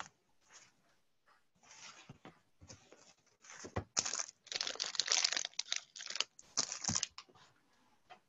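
Irregular crinkling and rustling, like paper or a wrapper being handled, in short scattered bursts that get denser and louder from about four seconds in.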